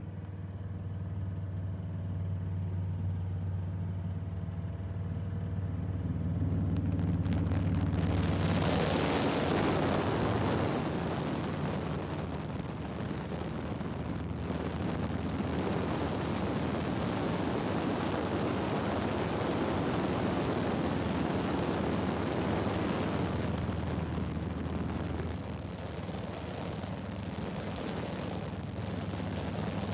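Steady low drone of an aircraft engine and propeller, heard from inside the cabin. About eight seconds in, a loud, even rush of wind comes in over it and stays.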